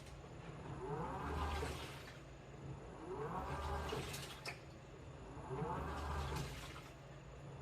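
New washing machine in its wash cycle: the drum turns in bursts about every two seconds, each starting with a short rising motor whine and ending in a swell of water and laundry sloshing, three times.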